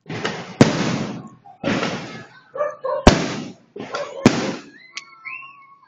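Aerial firework shells bursting overhead: a string of loud, sharp bangs, the biggest about half a second, three seconds and four seconds in, each fading out over a second or so.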